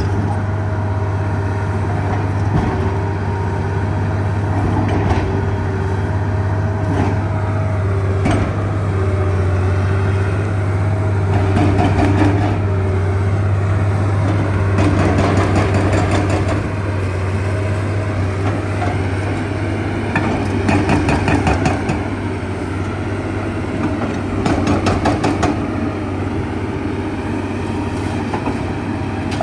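Liebherr R 954 excavator's diesel engine running steadily, with its hydraulic breaker hammering in several short spells of rapid blows and a few single knocks.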